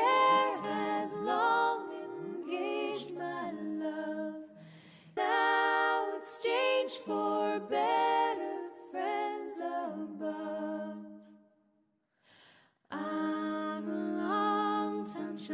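Music: a cappella singing, with voices holding and sliding between notes. It fades out about eleven seconds in, stops briefly, then starts again a second or so later.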